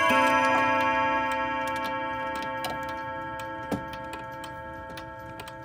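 Chime rods of an antique Girod dual-chime wall clock, struck by the chime hammers right at the start, ringing on together as a sustained chord that slowly fades away. The clock's movement ticks faintly underneath, with one sharper tick about two-thirds of the way through.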